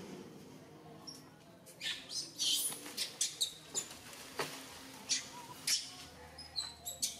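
Baby macaque squeaking: a dozen or so short, high-pitched squeaks and chirps in quick, irregular succession, starting about two seconds in.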